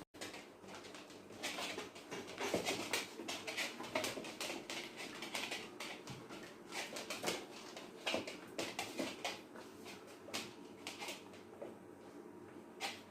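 Pets scuffling, with quick irregular taps and scrapes of paws and claws on a hard floor, loudest in two flurries in the first half.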